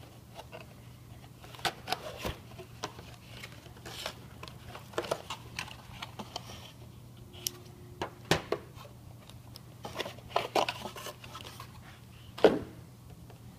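Cardboard packaging being handled while an iManifold refrigerant analyzer is unpacked: scattered light knocks, scrapes and cardboard rustling, with one louder knock near the end.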